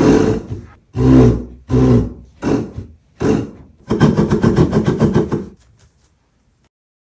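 Ball bounced hard on a floor: five separate thuds, each ringing briefly, then a quick run of about a dozen bounces fading out as the ball settles, the kind of impact noise that carries to the flat below.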